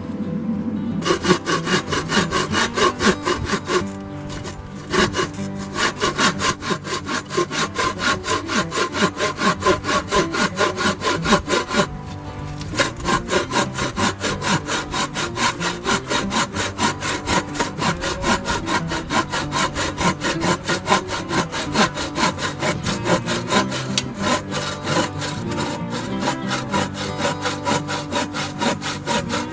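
Hand saw cutting through wood in quick, steady back-and-forth strokes, with brief pauses about four and twelve seconds in.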